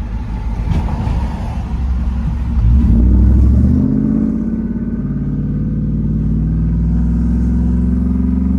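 Pickup's 5.3-litre V8 through a true dual exhaust with Borla XR1 mufflers and an X-pipe: a deep rumble that swells to its loudest about three seconds in, then settles into a steady drone rising slowly in pitch as the truck pulls away.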